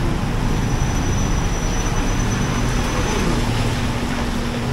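Steady vehicle noise: a low engine hum with road rumble, and a faint high whine for a couple of seconds.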